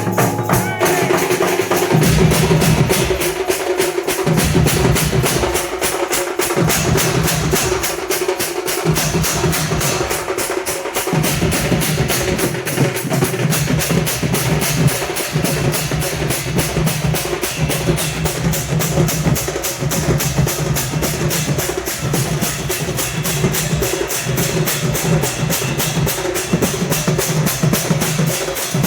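Ghanta badya percussion band: bell-metal gongs and drums beaten in a fast, unbroken rhythm, with the gongs' ringing tones held underneath. A deeper drum part comes in about two seconds in.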